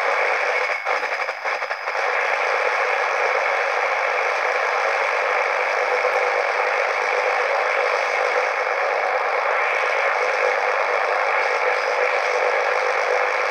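Steady static hiss from a WAXIBA portable radio's small speaker, dipping briefly twice about a second in.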